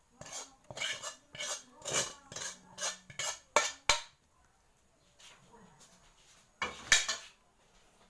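A utensil scraping cooked food out of a metal pan onto a plate in quick repeated strokes, about two a second, for the first four seconds. After a pause comes a single louder clank, about seven seconds in.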